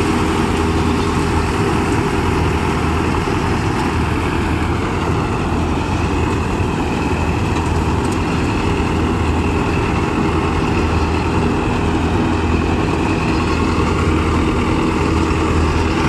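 Farmtrac 6055 tractor engine running steadily under load, driving a Panesar TMC-800 tractor-mounted mini combine harvester as it harvests wheat. The threshing machinery adds a continuous mechanical whir, with a faint whine in the middle.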